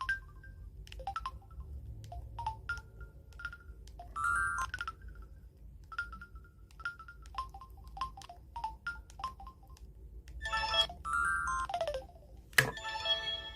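Samsung Anycall SCH-S530 mobile phone sounding short key beeps, then playing a ringtone melody from about ten seconds in, with a sharp click shortly before the fuller part of the tune.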